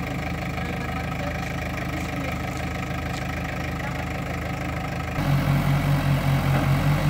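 Backhoe loader's diesel engine idling steadily. About five seconds in, it becomes suddenly louder, with a regular pulsing throb.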